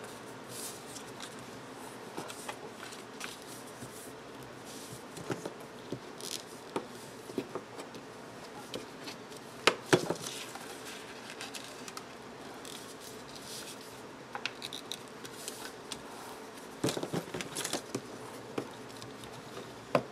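Heavy printed paper being folded and creased by hand into an envelope: soft rustling and crinkling with scattered light taps and clicks. One sharper click comes about ten seconds in, and a busier patch of handling follows late on.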